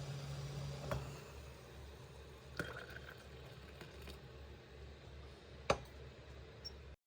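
Kitchenware being handled: a few sharp taps and clinks, the loudest near the end, over a low steady hum. The sound cuts off abruptly at the very end.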